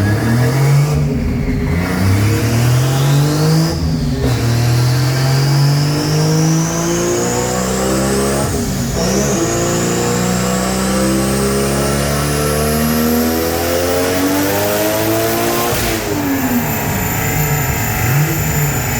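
Turbocharged 1JZ straight-six in a Corolla wagon pulling hard at full throttle, revving up through the gears. Its pitch drops sharply at three shifts, and a high whine rises above it. About three seconds from the end it comes off the throttle and winds down.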